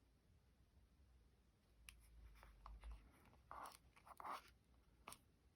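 Faint rustles and scrapes of paper and card being handled, a few short ones starting about two seconds in.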